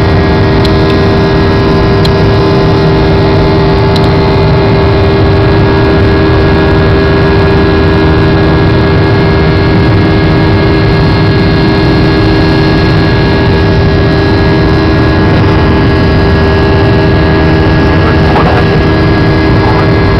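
Aircraft cabin noise during the climb after takeoff: the engines running at high power as a loud, steady rush with several steady humming tones through it.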